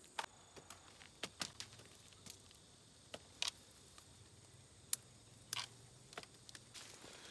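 Chili peppers being picked by hand and dropped into a plastic basket: scattered soft snaps and clicks at irregular intervals over a quiet background.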